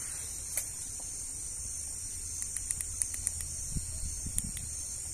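Steady high-pitched chorus of night insects. A quick run of small clicks comes about halfway through, and a couple of soft low knocks follow near the end.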